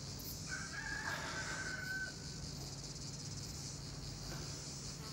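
A rooster crowing once, a drawn-out call of about two seconds starting about half a second in, over a steady high chirring of crickets.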